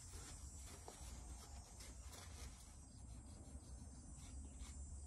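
Faint scratchy rustling and small irregular clicks of a paper towel being twisted inside an RC shock body to wipe out old thick shock oil, over a low steady hum.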